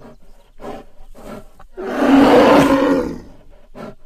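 Bear vocalising: a few short grunts, then one loud growling roar about two seconds in that lasts just over a second, followed by quieter short grunts.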